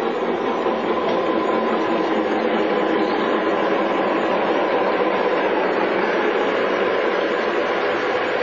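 Model train running on a layout: a steady rolling rumble of a model steam locomotive and freight cars on the track.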